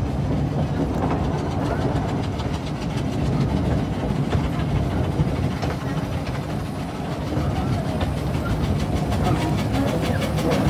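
Train rolling along its track: a steady rumble with a regular clickety-clack of wheels over the rails.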